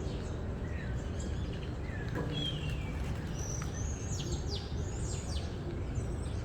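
Outdoor city street ambience: a steady low rumble with birds chirping over it, several quick high chirps coming in the second half.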